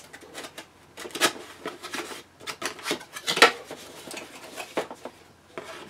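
Cardboard box being opened by hand, its top flaps and contents handled, with irregular rustles and scrapes. The loudest come about a second in and again a little past three seconds.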